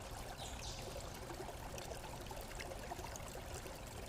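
Faint steady hiss, with a brief faint high swish about half a second in.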